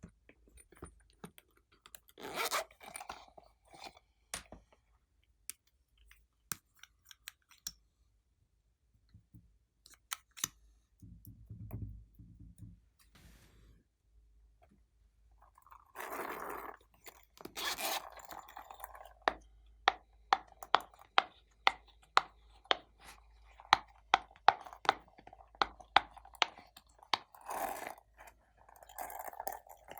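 Glossy slime being squished, stretched and pressed, with wet squelches and sharp air-bubble pops. In the second half the pops come in a quick regular run, about two a second.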